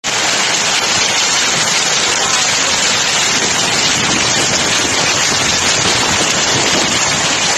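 Hail pelting a street and parked cars: a dense, steady crackle of countless small hailstone impacts.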